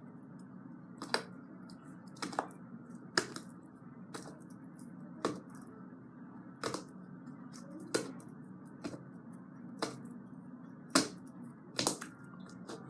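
Slime being squished and pressed by hand, giving sharp clicking pops about once a second over a low steady hum.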